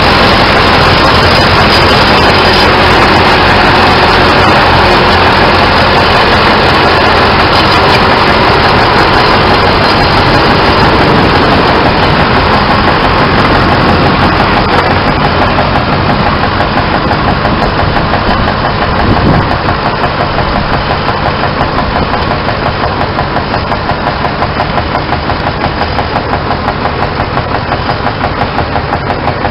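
Vintage tractor engines running under load in a tractor pull, a loud, heavy drone. About halfway through it eases into a quieter engine with an even, pulsing beat.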